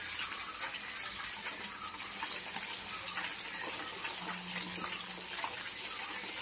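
Semolina-coated fish fillets deep-frying in hot oil: a steady sizzle with scattered small pops.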